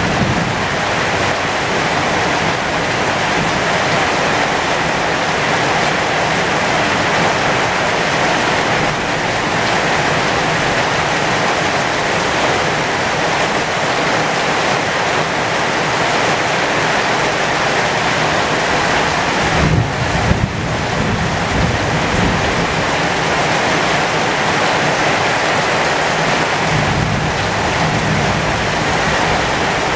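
Heavy rain falling steadily on the leaves of a flowering pomegranate tree, an even hiss. A brief low rumble comes about two-thirds of the way through.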